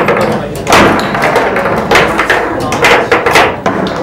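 Table football game in play: a fast, irregular run of sharp knocks and clacks as the ball is struck by the rod-mounted player figures and hits the table.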